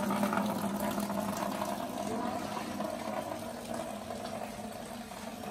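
Heavy rain falling steadily, a hiss that eases slightly toward the end.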